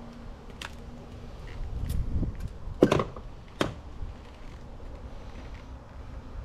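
Light clicks and knocks of a stator coil assembly and its wiring being handled and set down over an outboard's crankshaft, a few separate taps with the sharpest knock about three seconds in.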